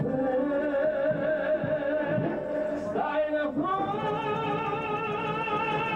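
A male singer performing an Italian song, holding long notes with wide vibrato, then rising to a higher held note about three and a half seconds in.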